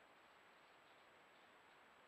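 Near silence: a faint steady hiss with a thin, high-pitched steady tone running through it.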